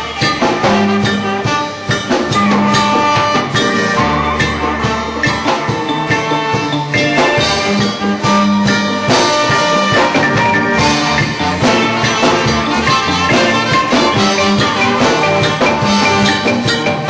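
Reggae band playing live, with bass guitar notes and drums running under the rest of the band.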